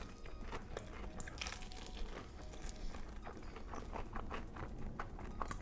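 A person chewing crispy fried chicken wings, a steady run of small crunches and wet chewing clicks.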